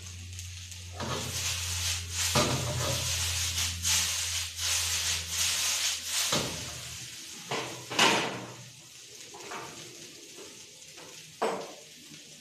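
Noodles sizzling as they are stir-fried and tossed in a wok, a dense run of quick scraping strokes for about five seconds. Then it quietens, with a few sharp clanks of metal on the wok.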